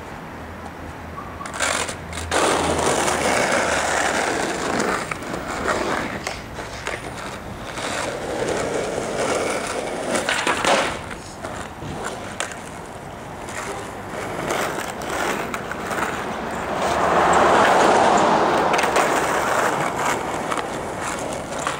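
Skateboard wheels rolling on street asphalt, growing louder and fading as the board passes close by three times, with a few sharp clacks of the board hitting the ground in between.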